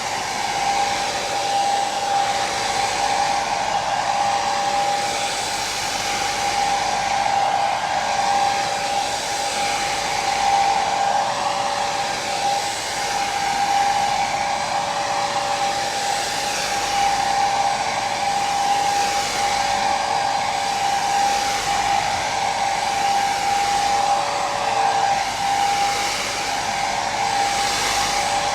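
Hair dryer running steadily: a constant whoosh of air with a steady motor whine, used as white noise for sleep.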